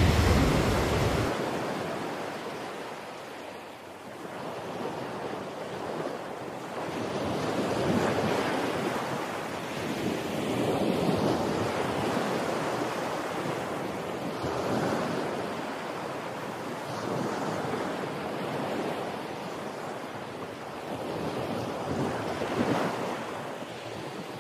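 Ocean surf breaking on rocks, the wash swelling and easing every few seconds.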